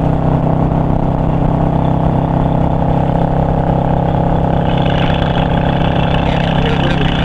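Yamaha V-Star 650's V-twin engine running steadily at cruising speed, with wind rushing past.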